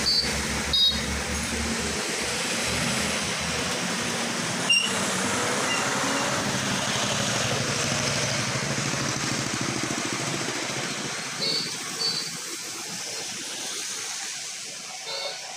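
Steady street noise of traffic on a wet road, with an engine hum in the first couple of seconds. A few short, high clinks come through, once near the start, again in the middle and twice later on.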